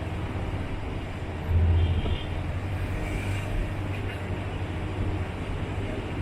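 Road vehicle running through street traffic: a steady low engine and road drone that swells briefly about a second and a half in, with faint higher tones over it.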